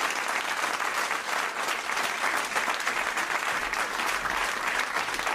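Audience applauding steadily, a dense even clapping from a full house.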